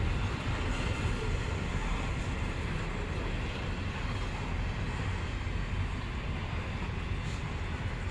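Grain hopper wagons of a freight train rolling past on the rails: a steady rumble of steel wheels on track.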